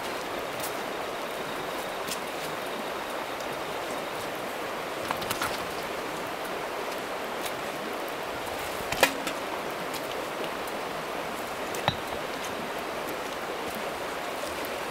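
Steady rush of flowing water, with a few scattered sharp clicks or knocks, the loudest about nine seconds in.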